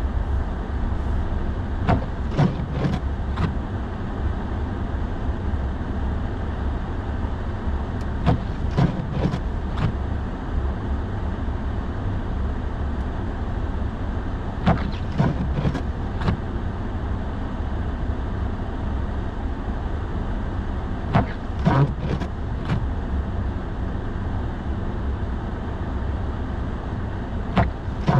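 Steady low road and engine rumble inside a pickup truck's cab. About every six and a half seconds comes a short cluster of clicks and knocks, typical of intermittent windshield wipers sweeping snow-covered glass.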